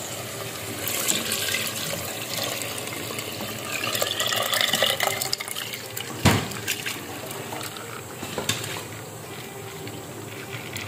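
Washed moong and masoor dal and its water being poured from a plastic bowl into a pot of mutton curry, the water running and splashing in, with a single sharp knock about six seconds in.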